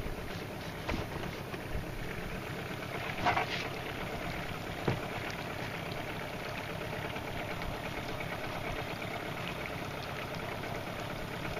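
A boat's outboard motor idling steadily, with wind and water noise. There are two brief knocks, about three and five seconds in.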